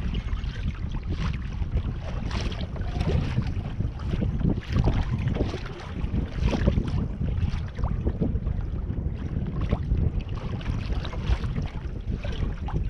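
Wind buffeting the microphone with a steady low rumble, and water splashing and slapping irregularly against a kayak's hull.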